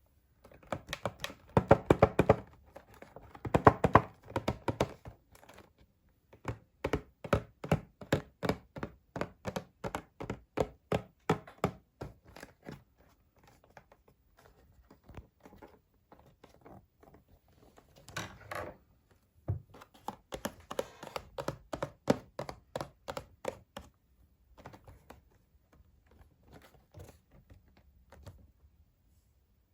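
Toy packaging being handled and opened: cardboard and plastic tapped, knocked and clicked, with a steady run of even knocks, about two or three a second, in the middle and another loud cluster later on, between quieter rustling and taps.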